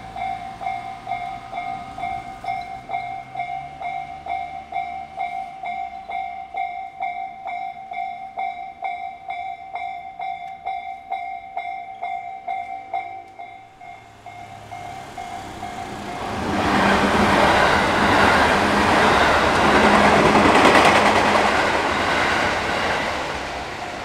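A Japanese level-crossing warning bell rings in a steady, even clang. It drops out about fourteen seconds in, and a JR Yamatoji Line train then passes the crossing with a loud rushing rumble of wheels on rail lasting about seven seconds.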